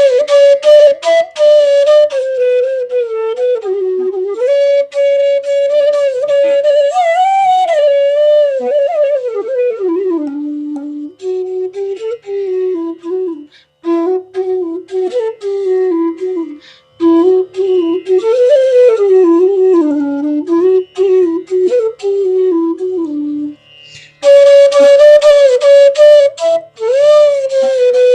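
Bansuri, the North Indian bamboo flute, played solo: one slow melodic line with frequent gliding pitch bends, in phrases separated by short breath pauses.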